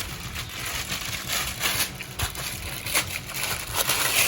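Packaging rustling and crinkling in irregular handling noises as parts are unwrapped, a little louder near the end.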